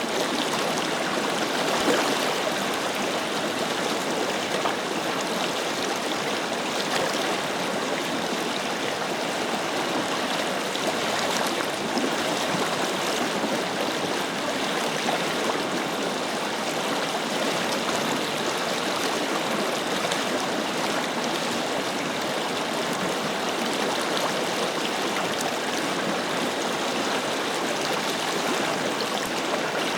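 A forest river flowing and splashing steadily over rocks, a continuous, even rush of water with no breaks.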